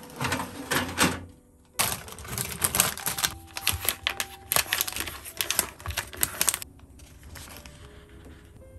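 Plastic cheese-slice packet crinkling and crackling as it is opened and a slice is peeled out. There is a short burst at the start, then a longer dense run of crackles from about two seconds in that stops abruptly about two-thirds of the way through.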